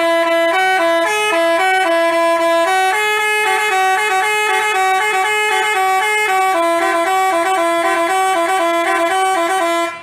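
Basuri telolet bus horn playing a melody, its notes changing several times a second and stopping abruptly at the very end.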